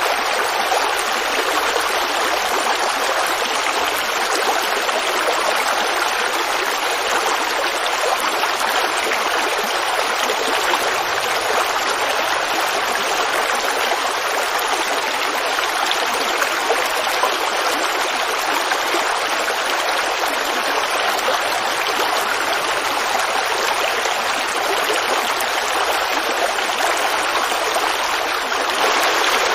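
Forest creek water running and babbling, a steady unbroken rush.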